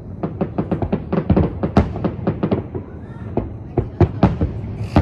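Aerial firework shells bursting over a lake: a rapid string of bangs, about five or six a second, for the first half, then a few louder single booms spaced apart near the end.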